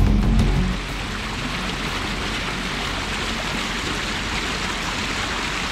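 A small woodland stream running steadily down a series of low stone steps, a constant rush of water. Background music fades out about a second in.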